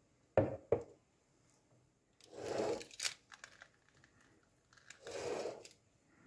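Metal springform cake pan set down on a counter with two quick knocks, then a knife scraping around the inside edge of the pan twice, loosening the baked cake from the rim.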